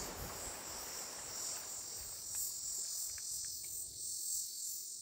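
Steady high-pitched insect chirring, with the tail of background music fading out at the start and a few faint clicks in the middle.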